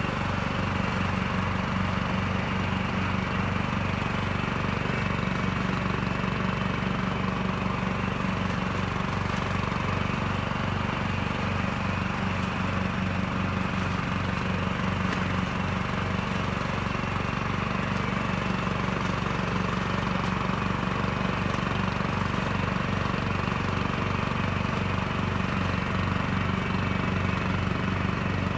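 Lawn Chief 16.5 HP lawn tractor engine running steadily with an even low throb.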